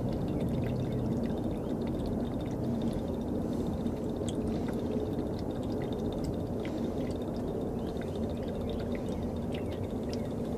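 Diesel fuel draining from the bottom drain of a semi truck's primary fuel filter into a catch jug: a steady pouring trickle over a steady low hum.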